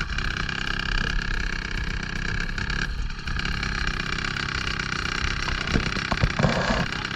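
Inflatable boat's outboard motor running steadily, with wind buffeting the microphone; a few light knocks about six seconds in.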